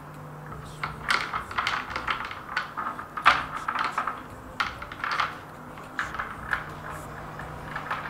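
Small real-metal chain clinking and rattling as it is handled and its ends are snapped onto a statue base by strong magnets: a run of irregular light clicks and clinks that starts about a second in.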